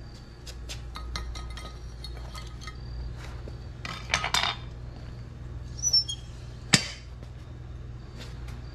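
Metal clinks and taps from a steel spoon and tools against a cast-iron ingot mold and the furnace, with a cluster about four seconds in and one sharp clank near seven seconds as the lid goes back on the furnace. A steady low hum runs underneath.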